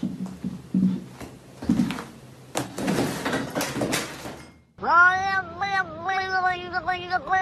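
A cat's drawn-out, wavering meowing starts abruptly about five seconds in and goes on with a few short breaks. Before it there are scattered soft knocks and rustling.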